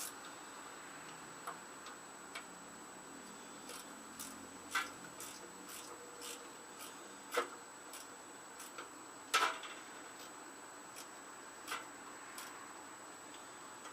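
A wrench working a stubborn bolt on an old Tecumseh mower engine: scattered, irregular sharp metal clicks, with two louder ones about seven and nine seconds in.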